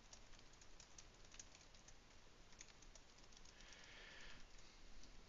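Faint typing on a computer keyboard: irregular light key clicks, with a brief soft hiss about four seconds in.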